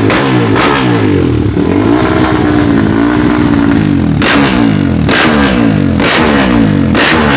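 Kawasaki KLX dirt bike's single-cylinder engine being revved over and over, blipping up and down about twice a second. It is held at a steadier pitch for a couple of seconds in the middle, then the sharp blips return.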